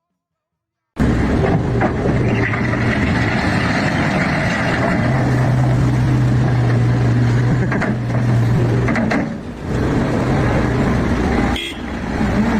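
Engine noise from a vehicle or heavy machine running steadily, starting suddenly about a second in, with a strong low hum through the middle and two brief drops near the end.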